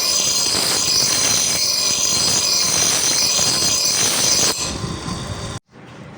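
Power grinder grinding steel, with a loud high-pitched whine and noise that swell and ease about twice a second as the metal is worked against the disc. It eases off about four and a half seconds in and cuts off abruptly near the end.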